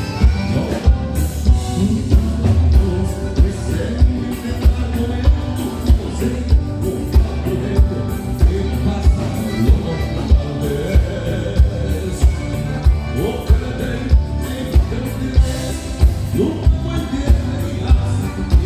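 Live gaúcha band music, loud, over a steady low beat about twice a second.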